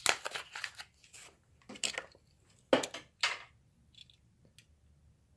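Plastic blister pack of a die-cast toy car crackling and clicking as it is pulled open by hand, with several short sharp crinkles in the first few seconds, then a few faint taps.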